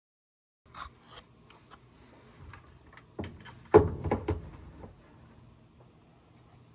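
Replacement washer drain pump being handled and pushed into place: rubbing with scattered clicks and knocks, starting under a second in, loudest about four seconds in.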